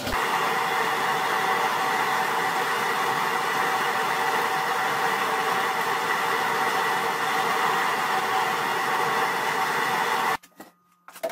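Steady rushing roar of a gas burner heating a stainless brew pot of decoction mash. It cuts off suddenly near the end.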